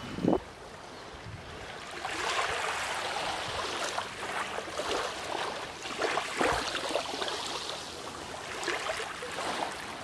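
Water washing and trickling in uneven surges, louder from about two seconds in, after a short thump right at the start.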